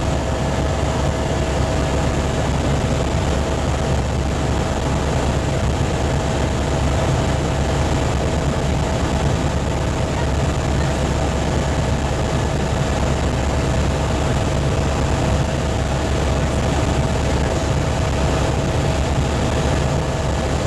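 Helicopter in flight heard from inside the cabin: steady, loud rotor and engine noise with a constant whine over it.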